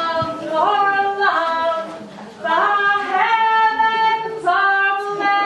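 Unaccompanied female singing in long held notes, each phrase sliding up into its note, with a short break about two seconds in.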